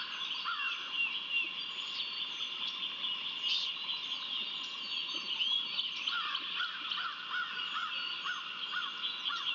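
Wild songbirds calling and chirping around the nest, many short chirps over a steady high-pitched tone. From about six seconds in, one bird repeats a short falling call a couple of times a second.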